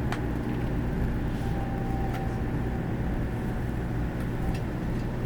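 Cabin noise inside a 500 series Shinkansen train: a steady low rumble with a few faint clicks.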